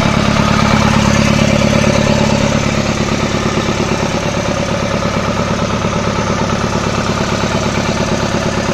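Toyota Dyna truck engine, rigged to power a homemade rice mill, running steadily; it drops a little in level after about three seconds.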